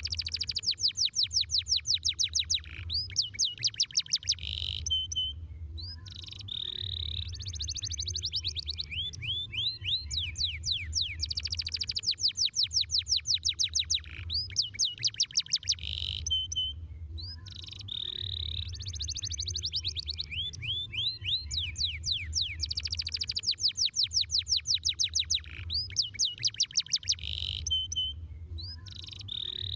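Domestic canary singing: long runs of fast, rapidly repeated rising trill notes, phrase after phrase with short breaks between, over a steady low hum.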